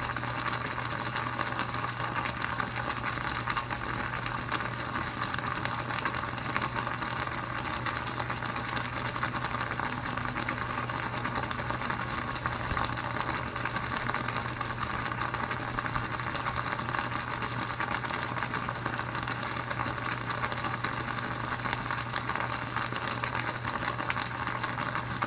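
Mains-powered water electrolysis cell, fed through a bridge rectifier and charging choke, running continuously: a steady low electrical hum with a dense crackling, sizzling sound of the heated water over it.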